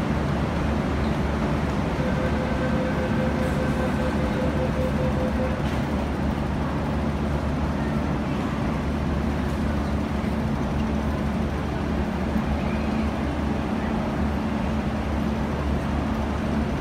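MTR Kwun Tong line train at an underground platform: a pulsing warning beep sounds for a few seconds about two seconds in, typical of the door-closing alarm. Then the train pulls out with a steady rumble and a low motor hum.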